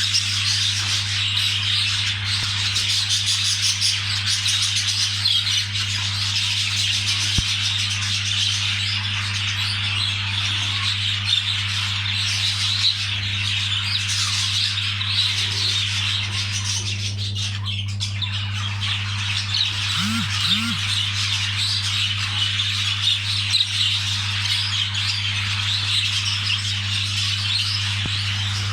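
Budgerigars chattering continuously: a dense, unbroken stream of chirps and warbles, over a steady low hum.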